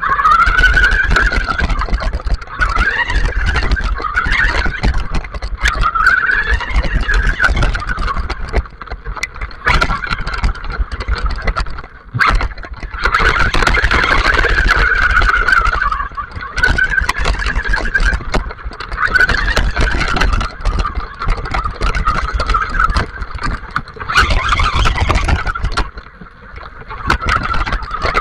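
Electric motor and gearbox of a WLtoys 4x4 RC buggy whining, rising and falling in pitch with the throttle, over a heavy rumble and crunch from the tyres on wet gravel. The whine drops away briefly three times as the throttle is let off.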